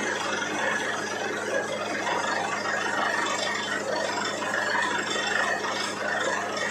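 Borewell drilling rig running steadily: a dense, even mechanical noise with a constant low drone underneath.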